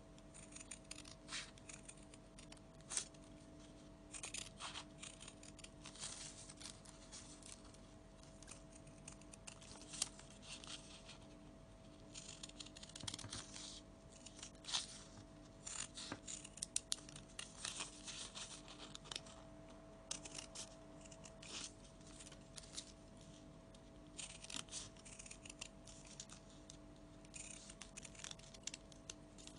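Scissors snipping through folded paper, short crisp cuts in irregular runs with brief pauses between them.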